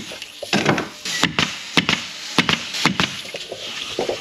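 Bostitch pneumatic stapler firing staples into a plywood cabinet joint: about six sharp shots, roughly half a second apart.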